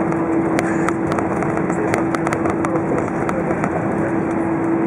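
Cabin noise of an Airbus A320 taxiing after landing: a steady roar with engines at idle and a steady hum, with scattered sharp clicks at irregular moments.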